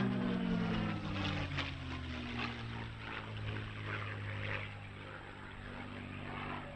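P-51 Mustang's Merlin V12 engine and propeller droning as the fighter flies past, the pitch falling over the first two seconds or so, then settling into a steadier, slightly quieter drone.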